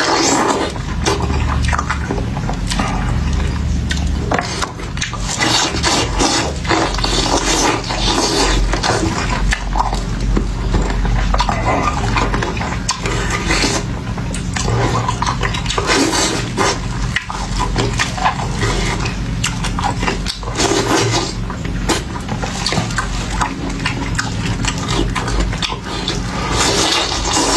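Close-miked eating of fried pork ribs, sausage and vegetables: chewing and wet mouth sounds with many quick, sharp crunches and clicks, over a steady low hum.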